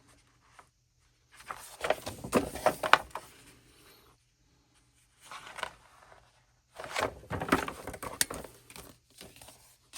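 A folded paper poster being unfolded and handled, rustling and crackling in three bursts with sharp snaps of the paper.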